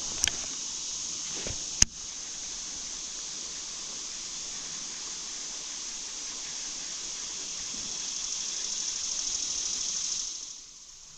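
Steady rushing hiss of river rapids, with two sharp clicks in the first two seconds; the rush drops away sharply near the end.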